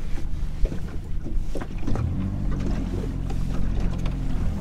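Fishing boat's motor running at low speed while the boat is manoeuvred into position. It makes a steady low hum that changes note about two seconds in.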